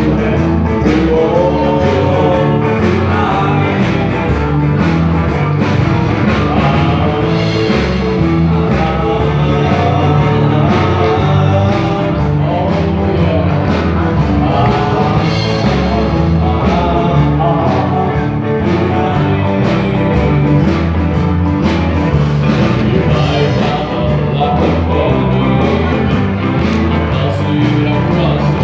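Live rock'n'roll band playing a song with a lead singer.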